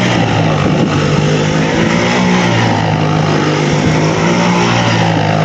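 ATV engine running loud and steady, its pitch wavering slightly as the throttle is worked.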